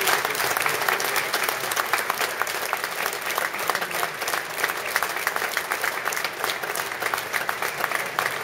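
Large stadium crowd applauding, a dense steady clapping of many hands.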